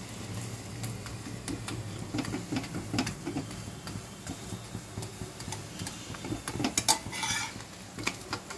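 Steel spatula scraping and tapping against a non-stick frying pan as a paratha is pressed and shifted in hot oil, with light sizzling. About seven seconds in there is a louder clatter and rush as the paratha is turned over.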